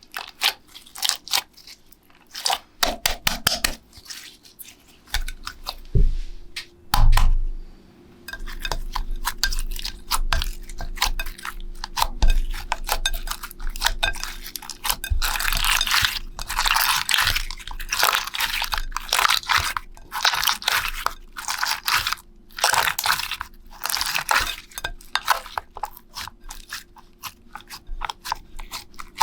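Slime being made by hand: a steady run of crunching and crackling, many small sharp clicks close together, growing denser about eight seconds in, with two heavier thumps about six and seven seconds in.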